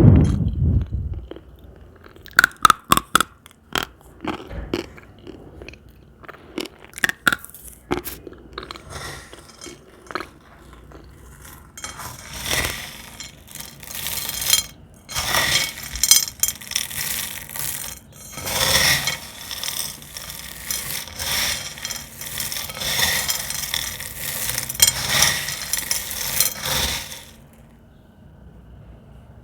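Crispy cornstarch film being handled and crushed: sharp crisp clicks over the first several seconds, then a long run of dense crackling and scraping that stops a couple of seconds before the end.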